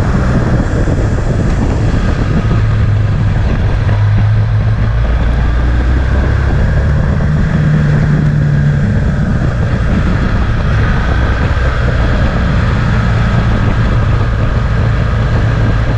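Motorcycle engine heard from on board at riding speed, its note stepping up and down a few times with throttle and gear changes, with wind buffeting the microphone.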